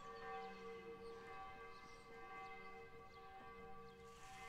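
Church bells ringing faintly: a steady blend of several bell tones that swells slightly without ever breaking off.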